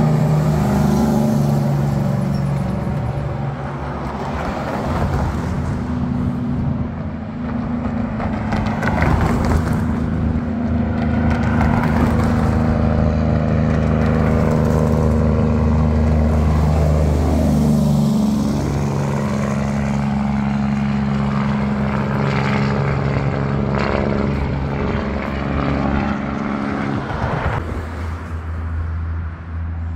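Diesel semi-trucks descending a steep mountain grade on their engine brakes (jake brakes), a loud steady low drone with cars passing. One vehicle goes by close about 17 seconds in, and the engine sound drops away near the end.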